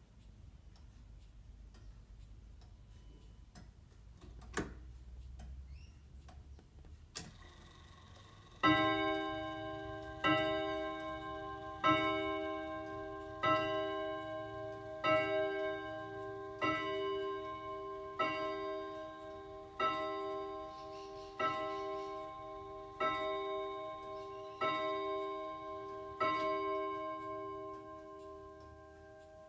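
Tempus Fugit Polaris 31-day longcase clock striking twelve: twelve evenly spaced ringing strikes, about one every second and a half, each ringing on into the next, over the steady tick of the pendulum. Two sharp clicks come before the strike begins.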